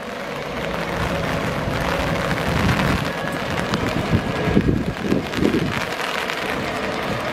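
Class 232 'Ludmilla' (TE109) diesel locomotive running with a deep engine rumble as it rolls slowly in, growing louder over the first second or so and then holding steady, with the engine throbbing more strongly about four to five seconds in.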